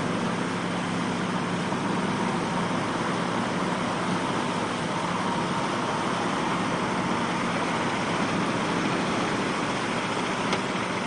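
Heavy army truck engine running steadily as the truck drives out of the surf, over a constant rush of waves and wind.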